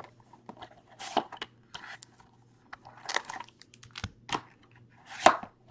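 Trading-card packaging handled by hand: irregular crinkles, crackles and tearing of foil and plastic wrapping, with the loudest crackle near the end.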